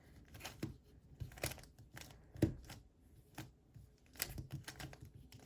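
Rubik's speedcube layers being turned by hand, giving irregular plastic clicks, about two a second, with a few louder snaps. The turns are slow and halting, made with only a thumb and index finger.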